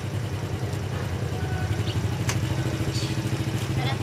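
Small single-cylinder Honda underbone motorbike engine idling steadily. A single sharp click comes a little past halfway.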